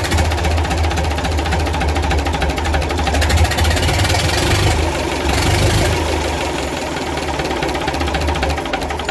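Gardner diesel engine running steadily at idle with its rocker cover off, the exposed valve gear ticking in a rapid, even clatter. It is a test run after clearing a blocked oil hole in the number one exhaust rocker, to see whether the rockers now oil.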